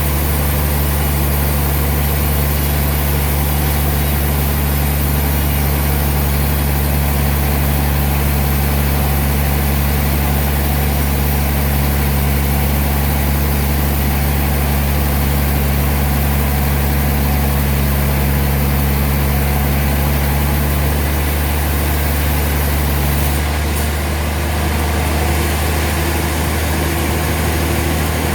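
Sawmill machinery running with a steady, loud engine hum; the tone shifts slightly about three-quarters of the way through.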